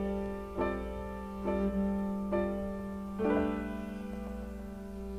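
Post-bop jazz record: a soft piano passage of about five slow chords, under a second apart, each left to ring over a held low note.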